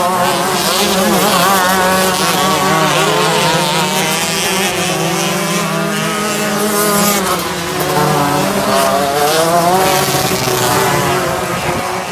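Several 125cc outlaw dirt-track kart engines racing together, their pitch rising and falling as they accelerate and back off around the oval.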